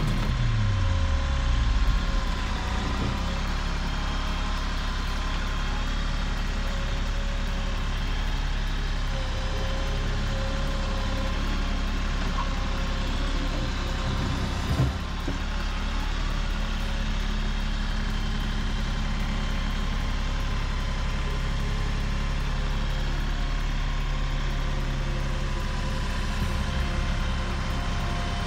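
Tractor engine running steadily, its revs dropping over the first couple of seconds, with a single knock about halfway through.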